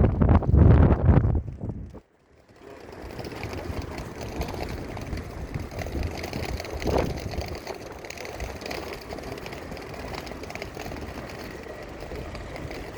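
Wind buffeting a phone microphone with a heavy low rumble, cutting off suddenly about two seconds in. After that, steady city street ambience with distant traffic, and one brief louder moment about halfway through.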